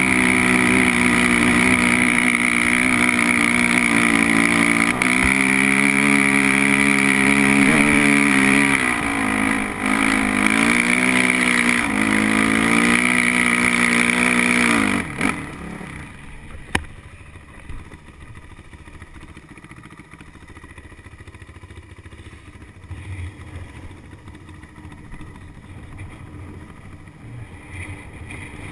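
Dirt bike engine running under load, its pitch rising and falling as the throttle is worked. About halfway through, the engine sound drops away sharply, leaving only faint rumble and noise with one brief knock.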